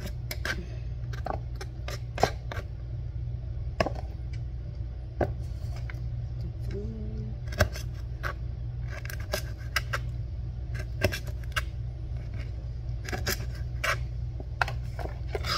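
Small kitchen knife snipping the toenails off raw chicken feet against a cutting board: irregular sharp clicks and taps, over a steady low hum.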